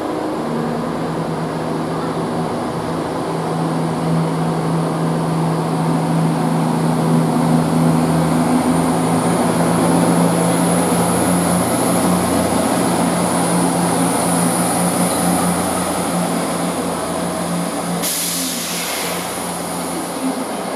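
CrossCountry diesel multiple units moving through the station, their underfloor diesel engines running with a steady low hum and a high whine. A brief hiss, likely an air release, comes near the end.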